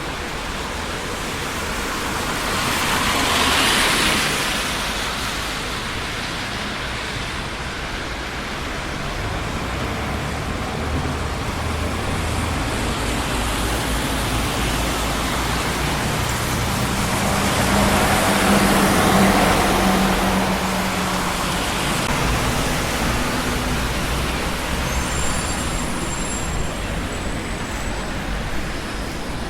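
Steady traffic noise on a busy city street, with vehicles passing close by. One passes about three seconds in, and a louder one around eighteen to twenty seconds in brings a low engine hum.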